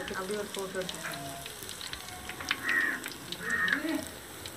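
Drumstick-leaf vadas deep-frying in hot oil in a large aluminium kadai: a steady sizzle with scattered crackling pops. Two brief louder sounds come about two and a half and three and a half seconds in.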